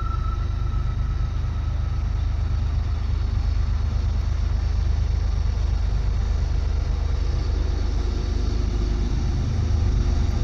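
Diesel locomotive of a Norfolk Southern freight train approaching, a steady low rumble that grows louder near the end.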